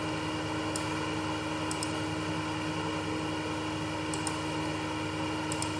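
Computer mouse clicking: a single click, then three quick pairs of clicks, over a steady electrical hum.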